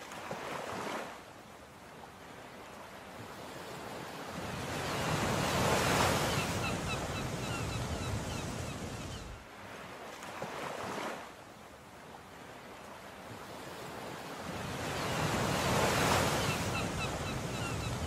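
Ocean surf: waves swelling and breaking twice, each surge building over a few seconds and then falling away. Faint short high cries come over the top of each swell.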